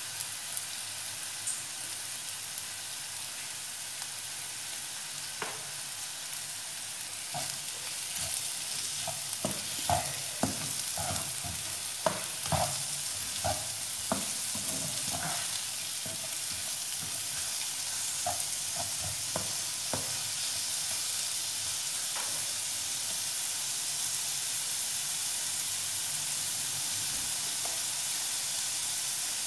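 Prawns frying with onions in oil in a non-stick pan, a steady sizzle. For much of the middle a spatula stirs them, scraping and knocking against the pan, and near the end the sizzling goes on by itself.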